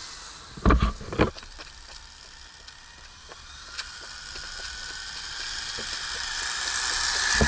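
Electric RC short-course truck (Traxxas Slash) driving toward the ground-level camera. Its motor and gear whine and tyre hiss grow steadily louder as it approaches. A few sharp thumps come about a second in.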